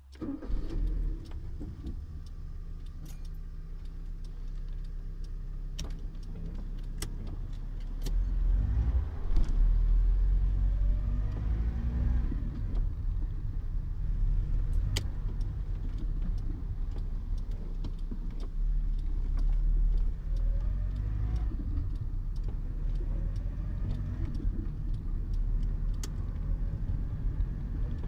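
Citroën BX 14's 1.4-litre petrol engine heard from inside the cabin while driving in town. It gets louder about eight seconds in as the car pulls away, and its pitch rises and drops as it goes through the gears, with occasional sharp clicks.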